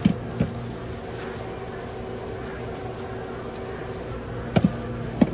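Metal serving spoon knocking a few times against steel food pans: a couple at the start, one shortly after, and a pair plus one more near the end, over the steady hum of a refrigerated sandwich prep counter.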